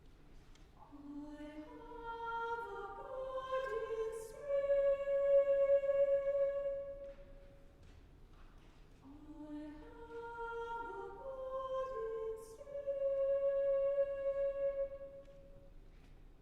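Choir singing two slow phrases, each climbing in overlapping steps to a long held note, with a short pause between them.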